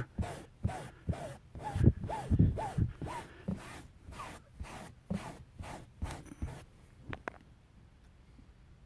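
A stiff piece of rubber drive belt scrubbed back and forth over cloth car-seat upholstery, about three strokes a second, dragging out embedded dog hair. The strokes stop about six and a half seconds in.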